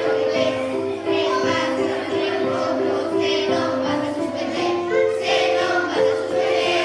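A group of primary-school children singing a Christmas carol together, a melody of short held notes moving step by step.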